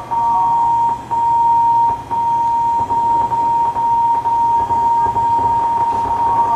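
A steady electronic tone at one pitch from an interactive cocktail-performance sound system, with short breaks about once a second at first, then unbroken. Near the end more tones begin to slide away from it, one rising and one falling, as the sensor-fitted shaker is tilted to pour.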